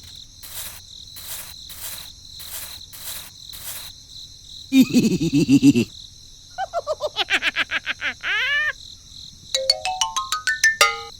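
Evenly spaced cricket-like chirps, then a string of electronic sound effects: a short warbling tone, a fast run of pulsing tones, and a run of beeps stepping up in pitch near the end.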